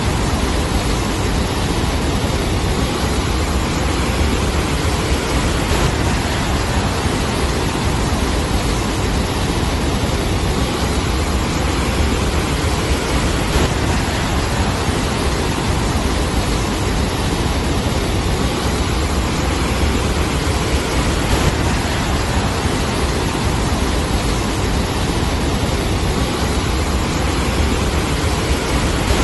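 Cyclone wind and storm-surge waves washing over a shoreline: a steady, loud rush of noise with a deep low rumble and no let-up.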